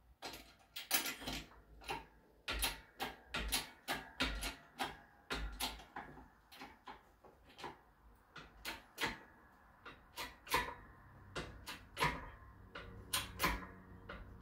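Shop press being worked in short strokes, its ram pushing a pressed-in sleeve through an old shift-linkage casting: a run of sharp clicks and knocks, about one or two a second, some with a low thump.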